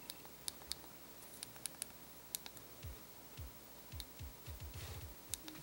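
Faint plastic clicks of a Pebble smartwatch's side buttons being pressed one at a time, about a dozen at irregular intervals. Soft low thuds come in with them in the second half.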